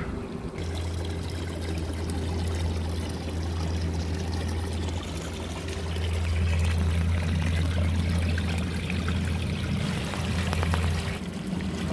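Spring water trickling from a mossy rock face and running along a split-pipe channel, pouring off its end onto stones and gravel, with a steady low rumble underneath.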